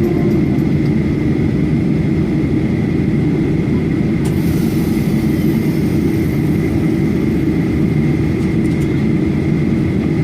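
Boeing 737-800 cabin noise on the ground with the engines running: a steady rumble under a constant high whine, with a hiss of air coming in about four seconds in.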